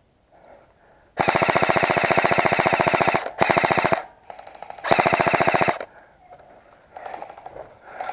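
Airsoft gun firing on full-auto at close range: three bursts of rapid, even mechanical rattle, a long one of about two seconds followed by two short ones.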